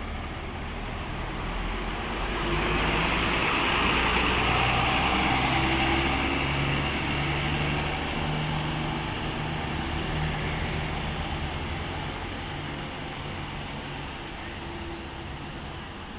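A large vehicle, most likely a bus, drives past with its engine running; the noise swells to a peak a few seconds in and then slowly fades.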